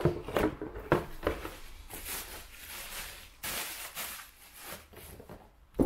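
Rustling and knocking of packaging being handled: a few sharp knocks in the first second and a half, two longer rustles in the middle, and a sharp knock near the end.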